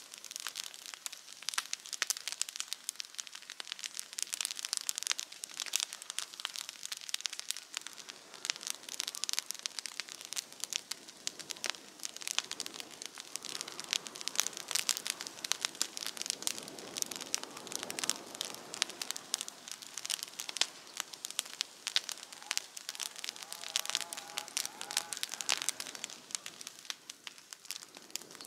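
Wood campfire crackling and popping, a dense irregular stream of sharp snaps.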